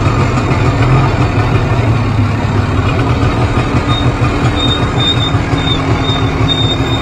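Two-stroke ATV engine running steadily at low trail speed, ridden gently while it warms up, with the rattle and rumble of the ride. About halfway through, a thin high-pitched squeal starts coming and going over it.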